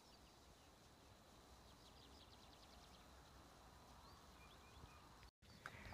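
Near silence with faint bird song: a quick trill of about a dozen high notes around two seconds in, then a few short chirps.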